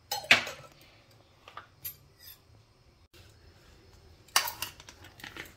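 A sharp knock near the start and a few light taps, then a metal spoon clinking and scraping against a metal mixing bowl of raw chicken from about four seconds in.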